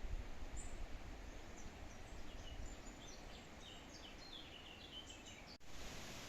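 A small songbird singing a run of short, high chirping notes and trills over a steady low background rumble.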